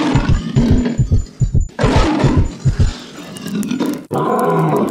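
A lion-like roar sound effect: deep, rapidly pulsing growls that fade out about three seconds in. Near the end a steady humming tone with several pitches takes over, then cuts off suddenly.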